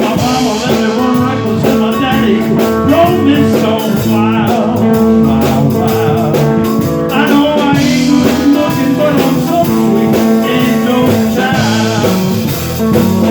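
Blues band playing an instrumental break between verses: guitar playing, with long held notes that bend in pitch.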